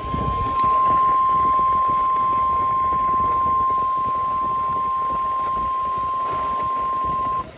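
NOAA Weather Radio 1050 Hz warning alarm tone, announcing a severe thunderstorm warning: one steady, loud, high tone that cuts off suddenly near the end. Received over the air, with a hiss of radio static underneath.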